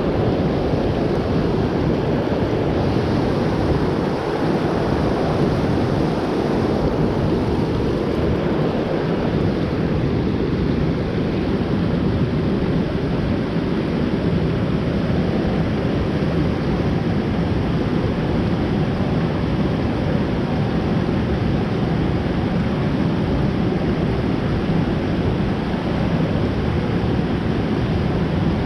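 Steady rushing of fast-flowing river water, a dense even noise with no breaks.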